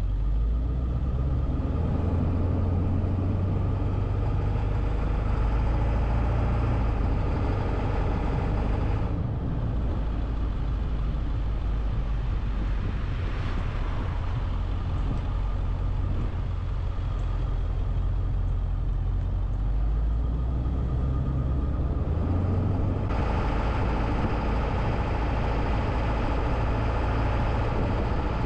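Car being driven, with a steady low engine rumble and tyre and road noise. The tyre hiss thins out for a stretch in the middle and picks up again later, with a brief louder whoosh about halfway through.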